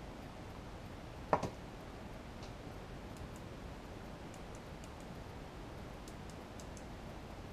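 Handling noise as a circuit board is slid out of a metal rack-unit chassis: one sharp knock about a second in, then a few faint light clicks and ticks.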